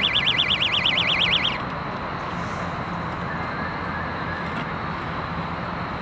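An electronic ringing tone warbling rapidly between two high pitches, about nine times a second, that stops about a second and a half in. A steady background rush follows.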